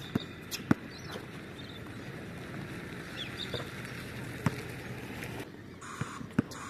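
Basketball bouncing on an outdoor hard court during a pickup game: a few sharp bounces in quick succession near the start, a single one midway, and two more near the end.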